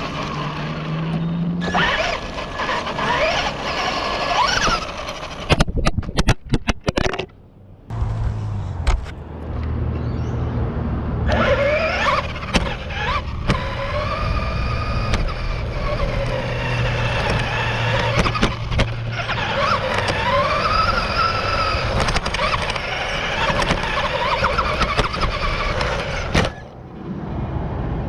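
Onboard sound of a radio-controlled buggy being driven hard on a track: its motor whines, rising and falling with the throttle, over tyre and chassis noise. About six seconds in comes a run of sharp clattering knocks, then a brief lull before the whine picks up again.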